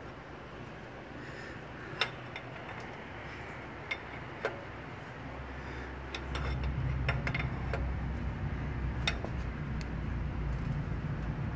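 Sharp metallic clicks and clinks of a combination wrench on a new oxygen sensor as it is tightened into the exhaust manifold: a few scattered clicks at first, more of them later on. A low rumble comes in about six seconds in.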